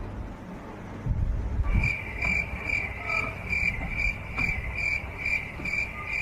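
Cricket chirping: a high chirp repeating about two and a half times a second, starting about two seconds in, over a low rumbling background.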